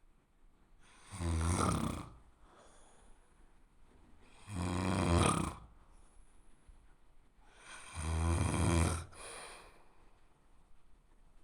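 A person snoring: three snores about three and a half seconds apart, each lasting about a second, with quiet breathing in between.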